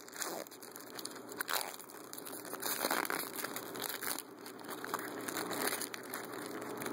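A football trading card pack's wrapper crinkling as it is torn open and handled, with irregular crackles and rustles.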